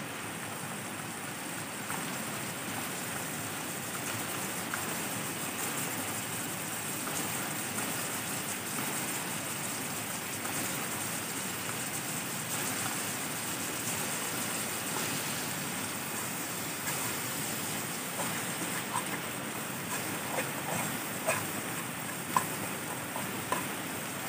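Steady rush of flowing river water. In the last several seconds, a few sharp clicks and taps of a metal fork against a frying pan as eggs and greens are stirred.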